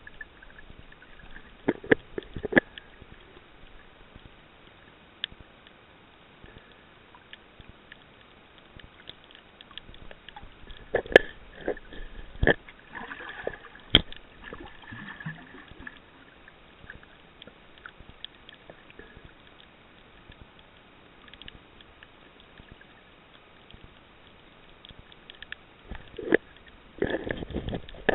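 Underwater ambience picked up by a camera held below the surface: a low hiss with scattered clicks and knocks, and three short clusters of louder noisy bursts, the loudest near the end.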